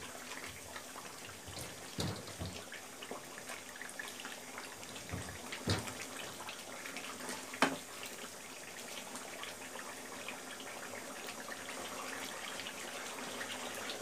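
Beef bhuna bubbling and sizzling in its oil in a nonstick wok while a wooden spatula stirs it, with soft scrapes and a few sharp knocks of the spatula against the pan, the loudest a little past halfway.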